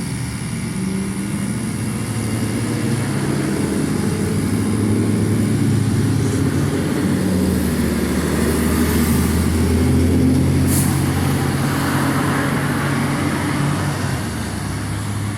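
Motor vehicle engine running steadily, slowly growing louder to a peak about ten seconds in and then easing off, with one short sharp tick near the peak.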